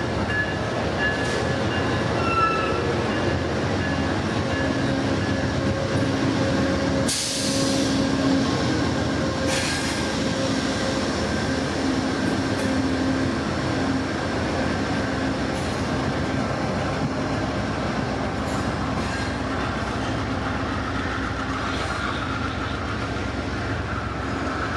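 Amtrak Superliner passenger train rolling along the rails: a steady rumble of wheels and car body with faint thin wheel-squeal whines. Two short bursts of hiss come about seven and nine and a half seconds in.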